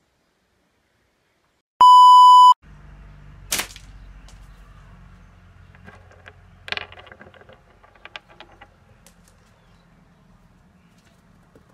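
A loud, steady electronic beep lasting under a second, about two seconds in, followed by a sharp snap about a second later and a duller clack near seven seconds, over faint background noise.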